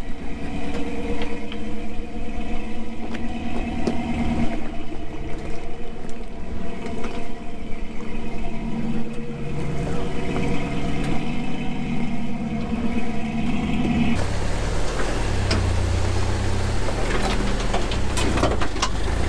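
Off-road rock crawler's engine running at low revs, its pitch rising and falling with the throttle as it climbs over rocks. About fourteen seconds in the sound cuts to a different truck's engine, a lower, deeper engine note.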